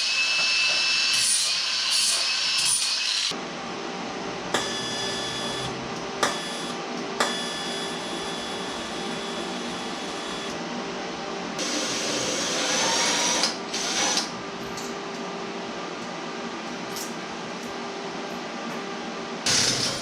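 Power tools running on steel tubing: a high-pitched whine for the first three seconds or so, then a steadier machine hum with a few sharp clicks, and a louder rasping stretch a little past the middle.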